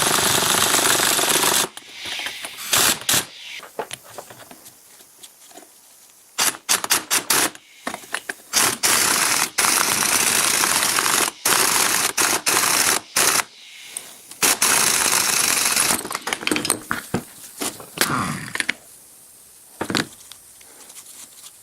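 A handheld power tool worked in repeated short bursts of varying length, with a gap between bursts, and a falling whine late on as it spins down.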